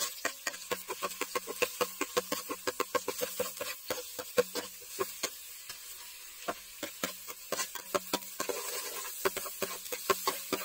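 Chopped garlic sizzling in hot oil in an aluminium pot while a plastic ladle stirs it, scraping and tapping against the pot. The sound is a quick, dense run of crackles and taps over a low hiss, easing off briefly around the middle.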